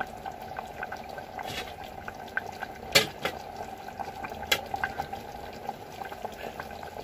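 Pulao water with rice, fenugreek leaves and vegetables boiling in an open pressure cooker: a steady bubbling with many small pops and a couple of louder ones, about three and four and a half seconds in. The pot is being brought to a full boil before the lid is closed.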